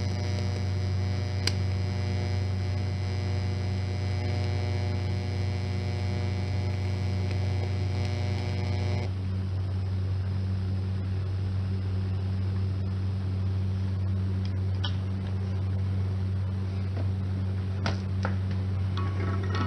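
Welding machine humming steadily, with an electric arc buzzing on top for the first nine seconds or so that cuts off suddenly as the weld stops; a few light clicks follow near the end while the hum carries on.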